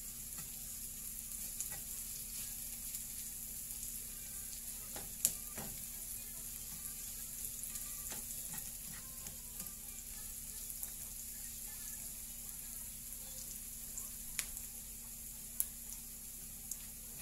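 Sliced onions sizzling steadily in oil in a nonstick frying pan, sautéing until soft and light brown. A few sharp clicks of a slotted turner against the pan come through, the loudest about five seconds in and several more near the end.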